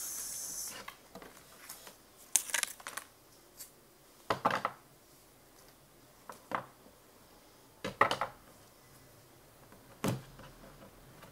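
A deck of oracle cards being handled on a wooden table: a brief papery rustle in the first second, then a handful of sharp card clicks and taps about every two seconds as the stack is separated and squared.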